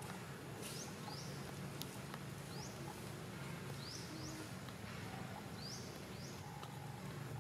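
A bird gives short rising chirps, often two close together, repeating every second or so over a low steady hum. A soft rustle comes about half a second in.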